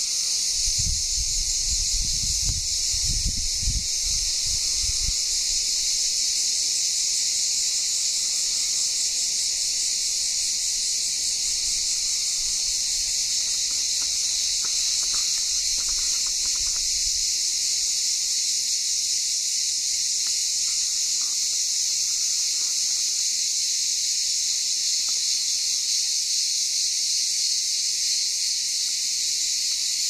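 A dense chorus of cicadas makes a steady, unbroken high-pitched buzz. Brief low rumbles on the microphone come in the first few seconds and again about halfway through.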